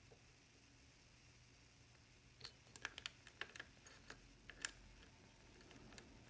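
Small, faint metallic clicks of a lock pick working the pins of a Lockwood MT5 high-security cylinder: about a dozen quick clicks bunched in the middle, with near silence around them.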